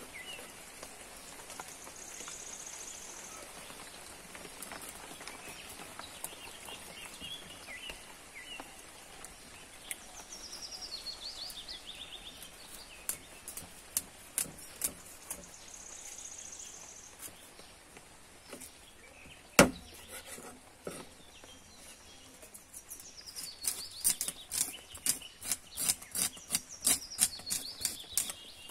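Knife scaling a para fish (trevally) on a wooden board: scraping strokes that come thick and quick near the end, with one sharp knock, the loudest sound, about two-thirds through. Birds chirp now and then in the background.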